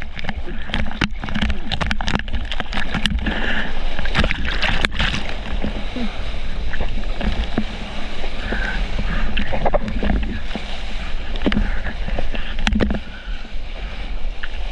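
Seawater rushing and splashing around a surfboard as a surfer paddles into and rides a breaking wave. Sharp splashes crackle in the first few seconds, over a steady low rumble of moving water.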